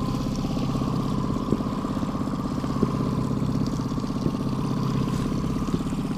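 Mercury outboard motor running steadily at trolling speed, close by, with an even low hum and a few faint clicks.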